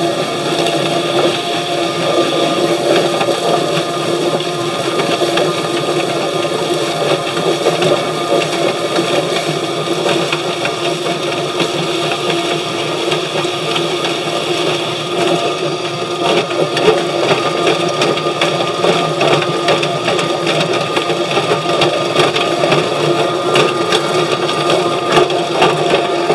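Drum chicken plucker running: its motor hums steadily while a scalded bird tumbles against the rubber plucking fingers on the spinning plate, with constant clattering knocks and a hose spraying water into the drum.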